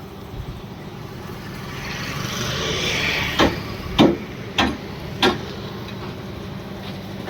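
Four sharp knocks, a little over half a second apart, over a steady low hum, after a brief swell of hiss.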